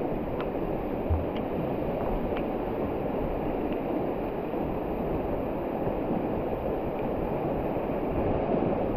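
Steady rushing of river water, an even noise at a constant level, with a few faint ticks.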